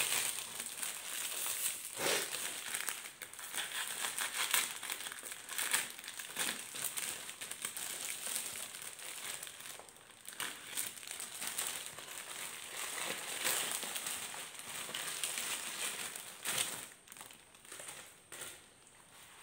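Clear plastic packaging crinkling and crackling as it is slit open and peeled off a parcel by hand, in irregular bursts that thin out near the end.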